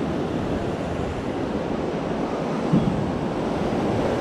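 Ocean surf washing up on a sandy beach in a steady wash, with wind buffeting the microphone.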